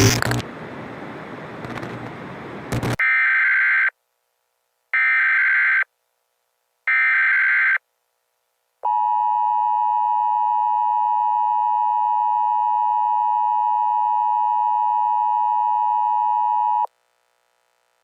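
A short burst of static, then three EAS SAME header data bursts, warbling and about a second apart, followed by the Emergency Alert System attention signal: a steady dual tone of 853 and 960 Hz held for about eight seconds before it cuts off.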